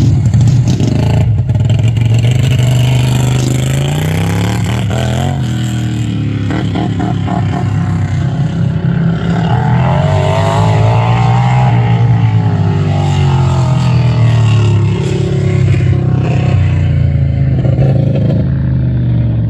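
Racing lawn tractor engine revving up and down in turn, its pitch climbing and dropping again and again, with a second engine's pitch crossing it at times.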